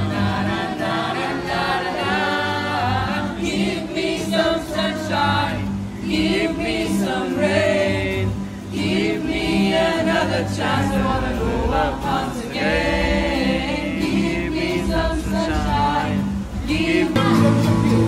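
Several young men singing a song together to an acoustic guitar, informal group singing with the voices carrying the melody.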